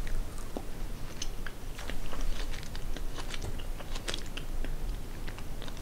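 A person chewing a soft, sugar-coated sour fruit gum close to the microphone: a scatter of small, irregular wet clicks and smacks.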